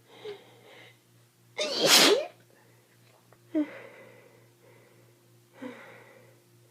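A person with a head cold sneezing: one loud, forceful sneeze about two seconds in, with shorter, quieter breathy catches and exhalations before and after it.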